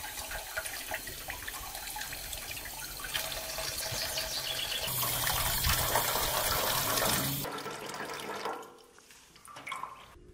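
Water running and splashing, louder for a couple of seconds near the middle, then stopping about eight seconds in.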